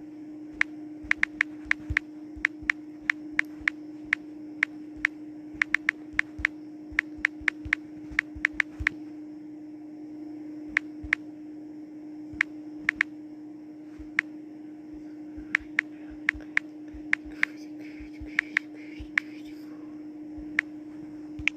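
Typing on a phone's touchscreen keyboard: irregular runs of quick clicks with short pauses, over a steady hum.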